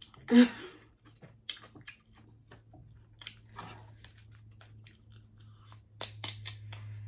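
Close-miked eating of seafood: chewing and wet mouth sounds, with a louder bite about half a second in and a run of sharp clicks and smacks around six seconds in.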